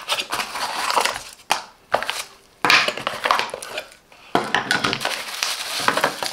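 Cardboard product box being opened and its packed contents handled: irregular scraping and rustling of cardboard and packaging, with a few sharp knocks and short pauses between.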